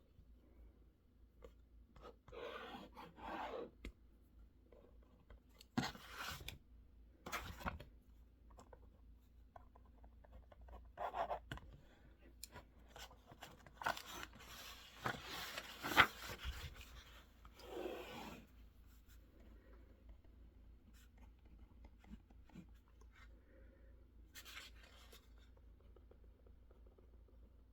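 Intermittent scratching and rustling at a desk, like a pen writing on paper and paper being handled, in short spells with pauses, and one sharp click about sixteen seconds in.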